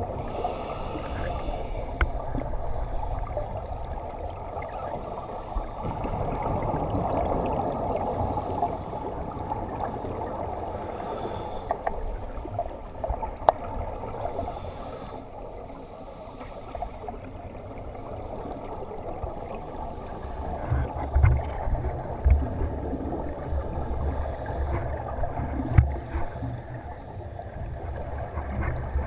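Underwater sound through a camera housing on a scuba dive: a diver's regulator exhaust bubbles gurgle out in bursts every few seconds over a steady low rumble. There are occasional sharp clicks, and heavier low thumps of handling or movement in the last third.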